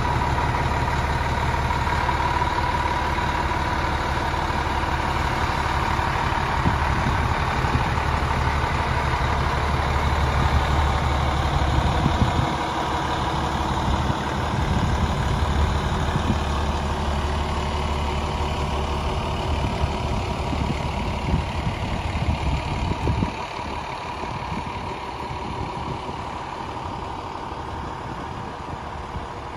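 Rear-mounted diesel engine of a 2006 Newmar Essex motorhome idling steadily, a low rumble with a thin steady whine over it. The rumble drops away briefly about twelve seconds in, returns, and grows fainter after about twenty-three seconds.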